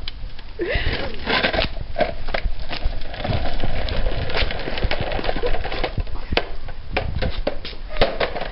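Hard plastic wheels of a toddler's ride-on toy bike rolling over rough concrete, a steady crackling rattle and rumble made up of many small clicks and scrapes.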